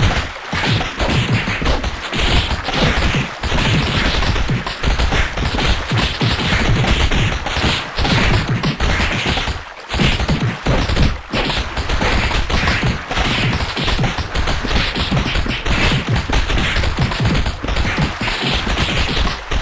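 Loud sneezes repeated rapidly and overlapping, almost without a break, with one brief lull about ten seconds in.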